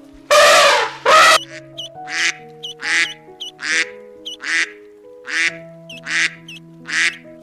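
An elephant trumpets once near the start. Then a waterfowl gives about seven short, regular honking calls, with faint high peeps between them, over background music with sustained notes.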